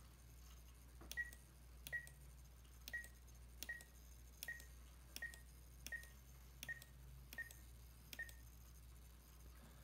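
Horus radio-control transmitter's trim switch being pressed about ten times, roughly one press every three-quarters of a second. Each press gives a click and a short high beep, with the trim set to extra-fine steps that nudge the servo about a twelfth of a degree each.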